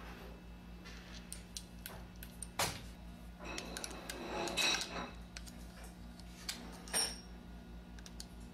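Hand tools and small metal parts of a Columbia automatic taper head clinking and scraping as the cam is fitted back on and screwed down. There is a sharp click about two and a half seconds in, a longer rattle with ringing metal around four to five seconds, and another sharp click near seven seconds, over a steady low hum.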